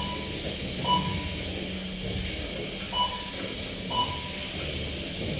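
Short electronic beeps, four in all at uneven intervals, from a race lap-counting system as the micro RC cars cross the timing line, over a steady low hum.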